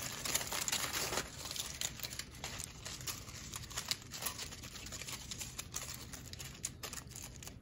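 Aluminum foil crinkling and crackling as hands roll and squeeze a crumpled wad of it, a dense run of small crackles that is loudest in about the first second and then goes on more softly.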